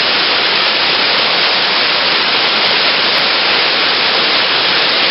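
Steady rush of a waterfall, an even hiss of falling water with no change in level.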